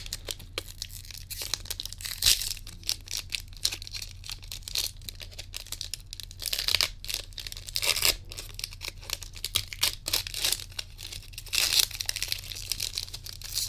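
Foil wrapper of a Pokémon card booster pack being torn open and crinkled by hand: a run of crackling tears and rustles, with several louder rips.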